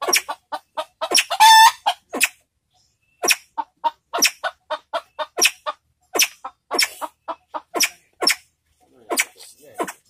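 Pheasant (sempidan) giving a rapid series of short, sharp clucking calls, about three a second. One longer drawn call comes about a second in, and there is a brief pause a little later.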